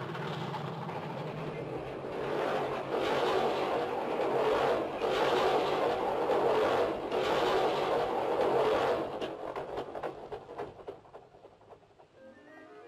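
A train rolling across a wooden trestle bridge, its wheels running on the rails directly overhead. The noise swells in waves through the middle and fades away over the last few seconds as the train passes.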